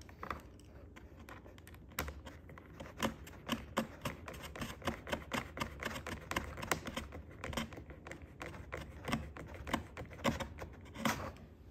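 Small hand screwdriver turning an M2x8 self-tapping screw into a plastic wing-strut mount on a foam model airplane: a run of irregular small clicks and ticks, a few a second, with a louder click about two seconds in and another near the end.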